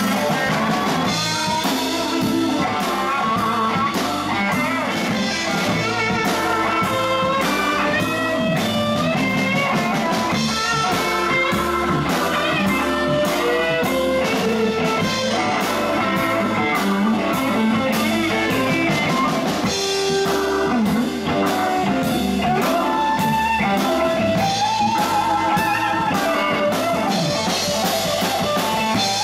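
Live blues-rock band playing an instrumental passage with no singing: electric guitar, electric bass, drum kit and keyboard over a steady beat.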